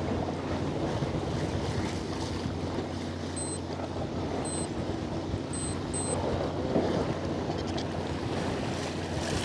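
Fishing boat at sea: a steady low engine hum under the wash of water along the hull and wind on the microphone. Four short high electronic beeps come in the middle.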